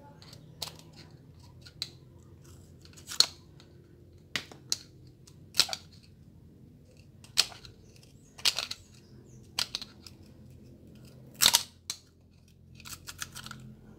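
Sharp metallic clicks and scrapes of a metal tool against a brass pressure-washer pump head as the old piston seals are pried out of its cylinder bores. About a dozen irregular clicks, roughly one a second, over a faint low hum.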